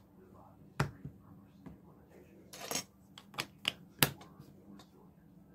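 Plastic LEGO bricks clicking and clattering as they are handled and pressed onto a baseplate: a few sharp clicks, the loudest about four seconds in, with a brief rustle near the middle.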